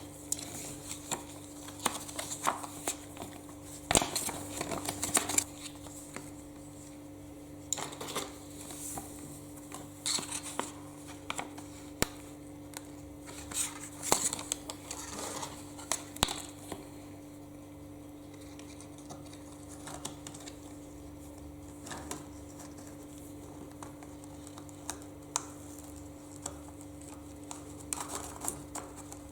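Small metal parts and hand tools clicking, tapping and scraping as they are handled on a workbench, in irregular clusters that thin out after the middle, over a steady electrical hum.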